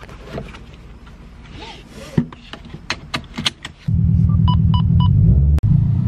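A few small clicks and rustles, then about two-thirds of the way in a Subaru WRX's turbocharged flat-four engine starts abruptly and runs loudly with a fast low pulse. Three or four short electronic chimes from the dash sound just as it catches.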